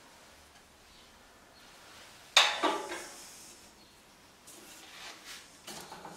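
A single sharp knock with a brief ring about two seconds in, as the turned wooden door stopper is knocked free of its glued waste block on the lathe faceplate. Near the end, faint small scrapes and clicks of a metal tool working the wood block.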